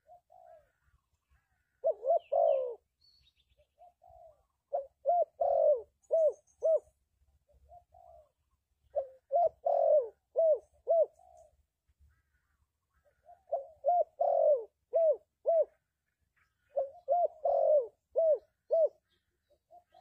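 Spotted dove cooing in five repeated phrases, each a soft lead-in note followed by a run of four or five coos, with pauses of one to two seconds between phrases.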